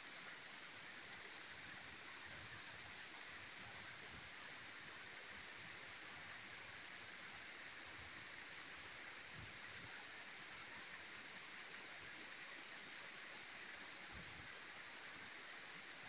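Steady, even rush of a waterfall pouring onto rocks.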